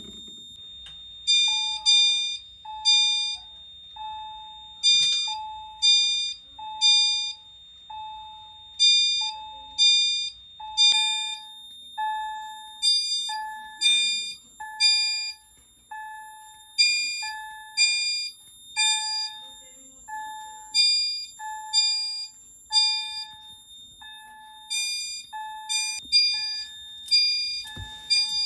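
Fire alarm chime devices in alarm. A Wheelock E90 speaker strobe sounds a soft, decaying chime note about once a second. Over it, a System Sensor SpectrAlert Advanced chime strobe sounds a higher chime in groups of three every four seconds, the temporal-3 evacuation pattern.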